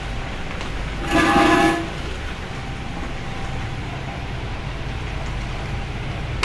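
Electric stirrer motor running steadily on a 200-litre mild steel mixing tank, its shaft churning the liquid into a deep vortex. About a second in, a short, loud horn-like tone sounds for under a second.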